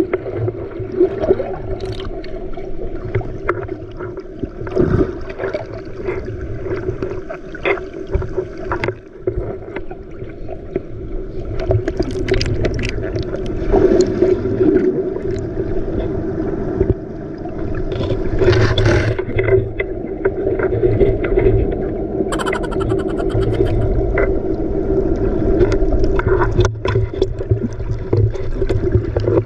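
A small boat's motor running steadily under way, with water splashing and sloshing against the hull.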